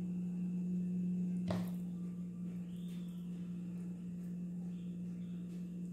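Steady low hum, with a single light knock about a second and a half in as a bowl of meatball dough is handled.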